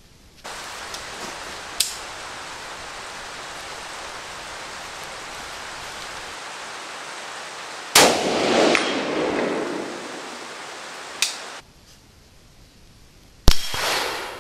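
A single rifle shot from an AR-15 fired inside a concrete shooting shelter, echoing and dying away over a couple of seconds, over a steady hiss. Near the end comes a second very sharp crack with a short metallic ring.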